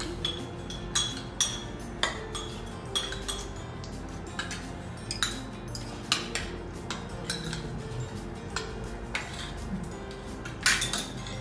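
Spoons and forks clinking and scraping on plates as people eat, in irregular clinks, some of them ringing briefly, with the loudest cluster near the end. Music plays underneath.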